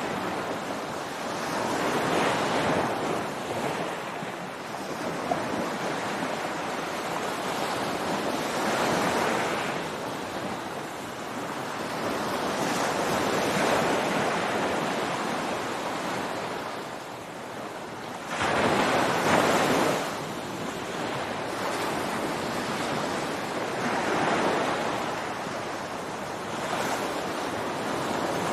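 Ocean surf breaking on a beach, with the wash swelling and fading every few seconds. A sharper, louder wave crashes about two-thirds of the way through. Some wind noise is on the microphone.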